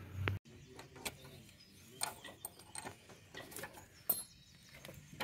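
Faint, scattered clicks and light metal taps from handling a motorcycle gear-shift lever clamp on its shaft, with a couple of short high chirps. A low hum cuts off abruptly near the start.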